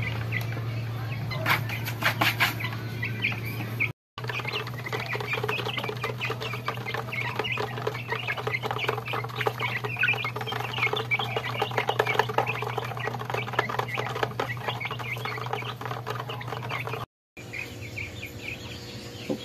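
A flock of month-old Rhode Island Red and Black Australorp chicks peeping and cheeping continuously, with a steady low hum underneath. The sound cuts out briefly twice, at about 4 seconds and again near the end.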